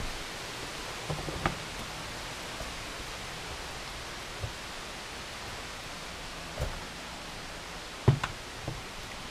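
Steady rushing hiss of creek water, echoing. A few short knocks and scuffs come through it, the loudest about eight seconds in.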